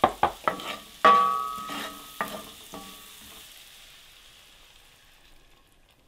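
Shallot, garlic and herbs sizzling in butter in a cast iron skillet while a wooden spatula stirs and knocks against the pan, one knock about a second in ringing briefly. The sizzle fades away over the second half.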